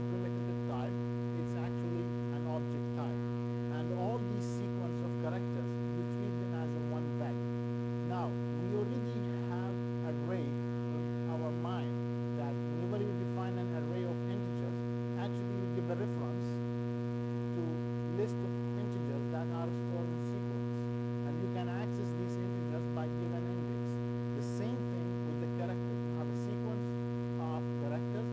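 Steady electrical mains hum with a stack of evenly spaced overtones, with a few faint scattered ticks above it.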